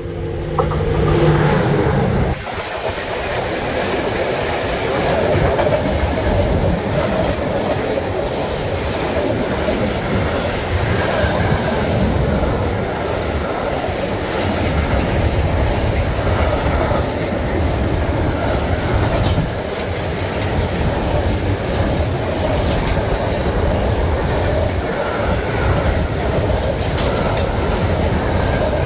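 Train running on the rails, its wheels clattering steadily over the rail joints for the whole stretch.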